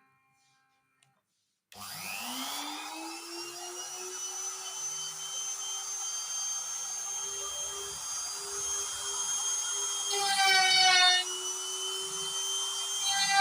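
CNC router spindle motor spinning up with a rising whine and settling into a steady high running whine. A louder set of higher tones joins for about a second around ten seconds in and again near the end.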